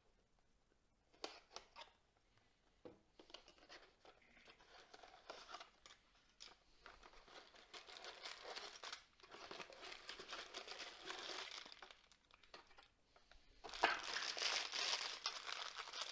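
A cardboard box being opened by hand and plastic bags of parts being handled, crinkling and rustling. First a few light clicks and scrapes, then rustling that grows steadily and is loudest near the end.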